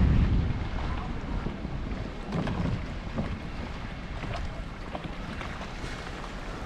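Wind buffeting the microphone with a low rumble, strongest at the start and easing off within the first second, then a steadier wind hiss over the seaside ambience.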